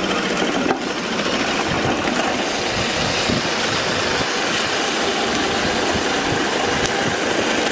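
Mattress tape edge sewing machine running steadily at speed, stitching the binding tape along a mattress border.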